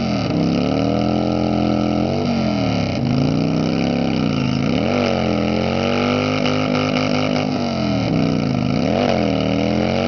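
Harley-Davidson V-twin motorcycle engine revving hard in a stationary burnout. The revs dip and climb back up about four times while the rear tyre spins against the plate.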